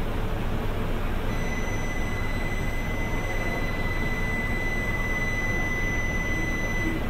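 Steady low rumble of Shinkansen trains at a station platform. About a second in, a steady high-pitched tone starts and holds until just before the end.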